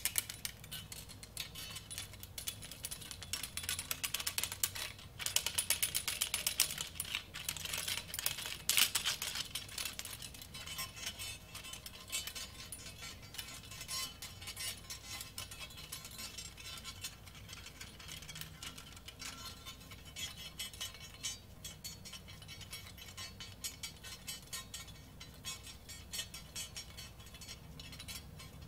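Dense, irregular clicking and crackling with a metallic, rattling edge. It is busiest and loudest in the first ten seconds or so, then thins to sparser clicks.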